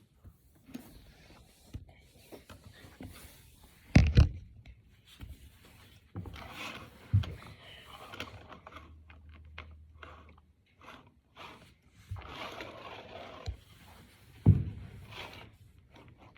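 Plastic Brain Flakes discs being handled and pushed together: scraping and rustling with a few sharp knocks, the loudest a double knock about four seconds in and another near the end.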